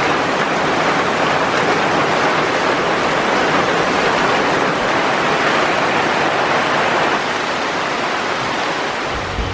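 Heavy rain pouring onto river water: a steady, dense hiss of countless drops hitting the surface.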